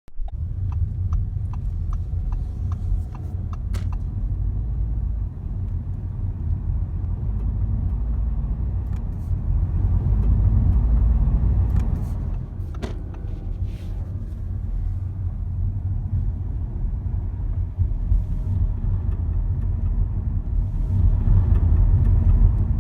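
Audi A4 Avant (B9) driving at low speed shortly after engine start, a steady low rumble of engine and road that swells twice, with a run of light ticks in the first few seconds and a few sharp clicks later. It carries the abnormal noise that sets in at about 40 km/h after a start, which a dealer could not trace.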